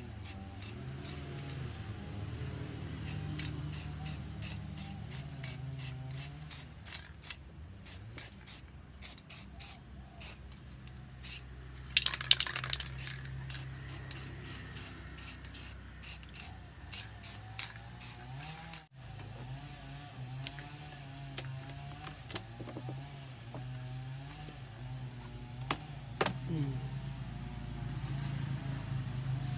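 Aerosol spray paint can sprayed in many short spritzes, about two a second, with one longer, louder spray about twelve seconds in; after about nineteen seconds only a few spritzes remain. A steady low hum runs underneath.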